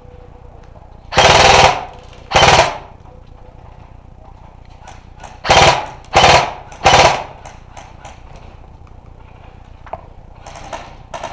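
An airsoft electric rifle firing five short bursts of full-auto fire, each a rapid rattle of shots lasting under half a second: two about a second apart, then a pause, then three in quick succession.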